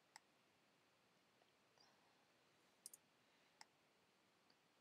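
Near silence with a few faint computer mouse clicks: one at the start, a quick pair just before three seconds in, and another shortly after.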